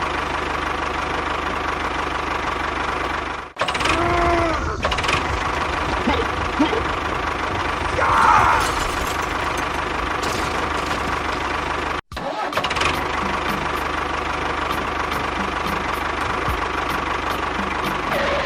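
Small motor of a miniature construction machine running steadily, breaking off abruptly twice.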